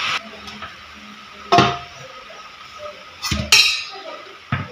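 Steel kitchenware clanking: about four separate metal-on-metal knocks, one about a second and a half in, two close together around three and a half seconds in with a bright ring, and a last one near the end.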